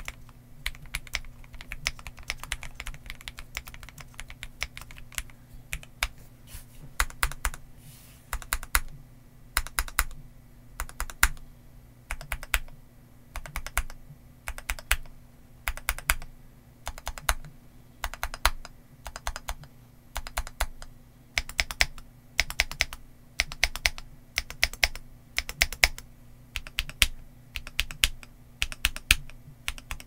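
Typing on a WhiteFox Eclipse mechanical keyboard in its high-profile CNC case, with Gateron Milky Yellow linear switches and Cherry-profile dye-sub PBT keycaps. A steady stream of keystrokes gives way, about six seconds in, to short runs of key presses with brief pauses between them.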